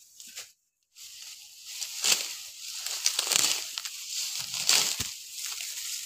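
Dry, ripe wheat stalks rustling and crunching as they are grabbed by hand and cut close to the ground with a hand sickle, in repeated strokes roughly once a second. There is a short break in the sound just under a second in, and a dull thump about five seconds in.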